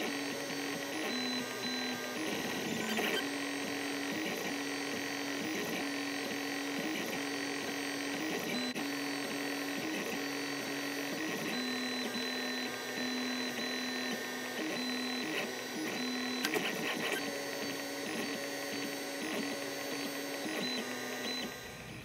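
LulzBot FDM 3D printer running a print: its stepper motors whine in short steady tones that jump in pitch every half second to a second as the print head moves, over a constant mechanical whir. The sound stops just before the end.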